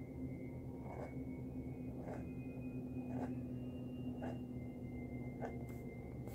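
Flexible 'wet noodle' fountain pen nib scratching on paper as it draws a row of loops, a short scratch about once a second, over a steady low hum.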